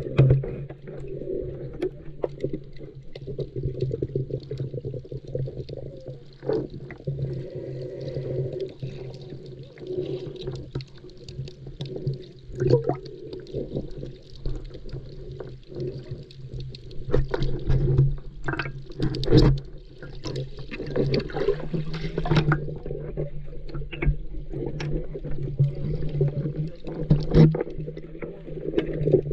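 Muffled underwater sound from a camera held below the surface in shallow water: water sloshing and gurgling over a steady low hum, with scattered sharp clicks and knocks.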